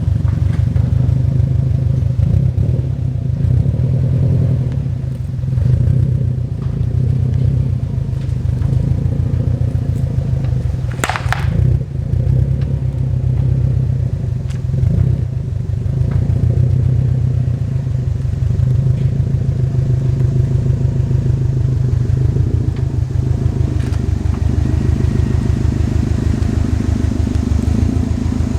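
2018 Subaru WRX STI's turbocharged EJ257 flat-four idling steadily with an even low rumble, still warming up after being started. A brief higher-pitched squeak sounds once about eleven seconds in.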